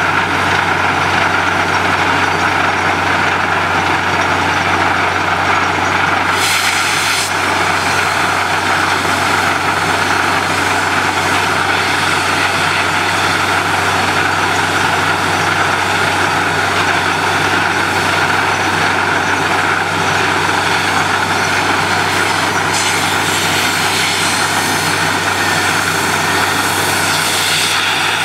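Truck-mounted borewell drilling rig running steadily, its engine and air compressor making a loud constant drone. A short hiss of air comes about six seconds in, and a stronger rush of air starts near the end as compressed air blows dust and mist up out of the bore.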